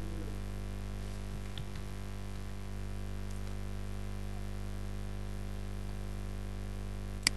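Steady low electrical hum from the recording setup, with one sharp click near the end.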